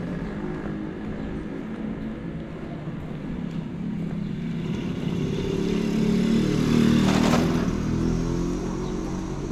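A motor vehicle engine running, growing louder to a peak about seven seconds in as it passes close by, then easing off.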